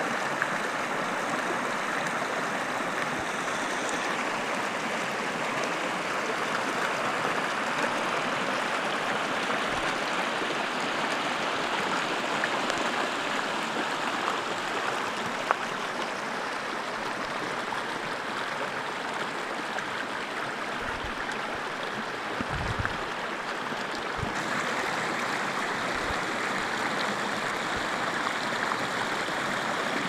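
Small rocky mountain stream rushing and splashing over little waterfalls, a steady wash of water noise.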